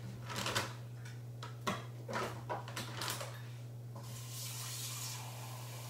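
Kitchenware knocking and clinking a few times as water is measured out, then a tap running steadily from about four seconds in.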